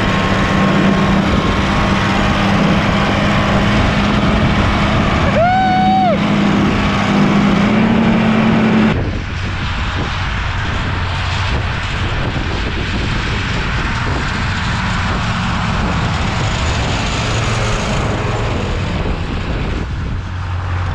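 Oliver tractor's diesel engine running steadily while driving through snow, heard close up from the driver's seat, its pitch rising a little near eight seconds in; a brief pitched call of about a second cuts in about six seconds in. About nine seconds in the sound drops to the engine heard from far across the field, with wind on the microphone.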